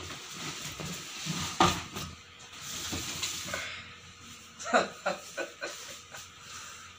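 Cardboard box flaps and packaging rustling as a motorcycle helmet in its cloth bag is lifted out of the box, with one sharp knock about a second and a half in. The rustling fades after about four seconds into lighter handling of the cloth bag.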